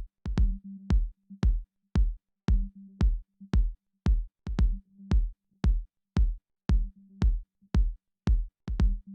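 Electronic background music with a steady drum-machine beat, about two kicks a second, over a held low synth note.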